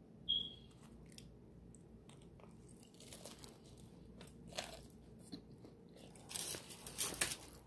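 A person biting into and chewing a piece of homemade pizza, with quiet crunching of the crust and a cluster of louder crunches near the end. A short high-pitched ping comes just after the start.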